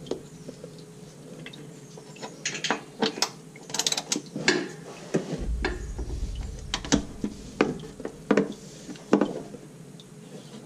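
Socket ratchet clicking in short runs as the transmission pan's T40 Torx bolts are worked loose, with small metal clinks between.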